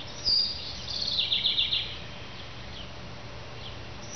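Wild birds singing: a short high whistled note, then a quick trill of short repeated notes about a second in, followed by a few faint chirps.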